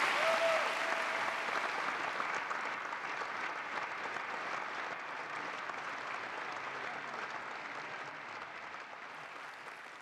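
Large audience applauding, the clapping gradually fading away.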